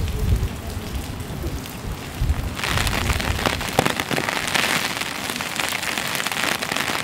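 Steady rain falling on wet stone paving, a constant hiss dotted with close drops pattering. About two and a half seconds in, the sound turns brighter and hissier as a low rumble falls away.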